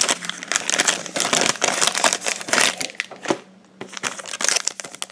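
Foil wrappers of trading-card packs crinkling and crumpling in the hands, in runs of quick crackles with a short lull about three and a half seconds in.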